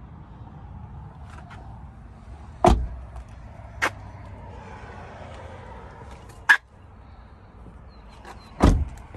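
2018 Toyota Camry's doors being shut: two solid thumps, about three seconds in and again near the end, with sharp latch clicks between them.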